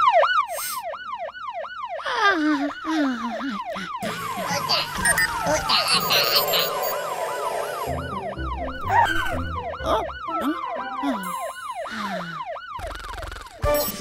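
Cartoon fire-truck siren whooping in fast rising-and-falling sweeps, about three a second, in bursts that stop and start again, with a downward glide in between. It is the siren working after being repaired.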